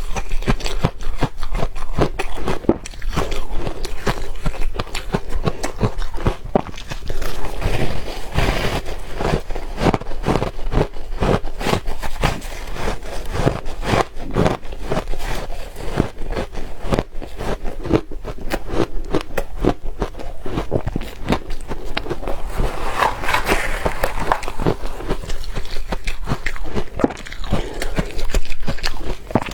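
Close-up crunching and chewing of soft, powdery ice mixed with crushed ice: a steady run of rapid, crackly bites.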